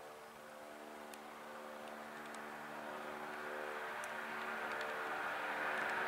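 John Deere 6250R tractor's six-cylinder diesel engine running steadily under load as it pulls a 7-furrow plough through the soil, growing steadily louder as the tractor approaches.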